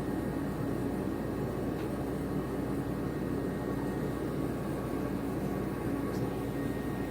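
Steady mechanical hum of a running vehicle, with a faint, steady high-pitched tone above it. It is a recording of the abnormal noise made for the service shop to check.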